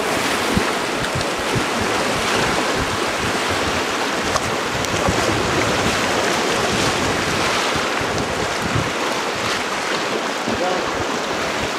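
Rushing river water around a paddle raft, a steady roar, with wind buffeting the camcorder microphone in irregular low thumps.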